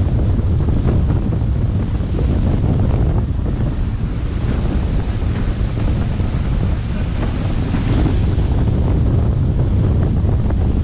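Wind buffeting the microphone aboard a moving boat: a loud, steady low rumble that flutters unevenly.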